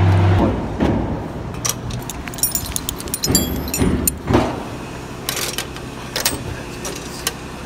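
Light metal clinking and jingling from a fall-protection harness's buckles and D-ring being handled, over a steady background rumble.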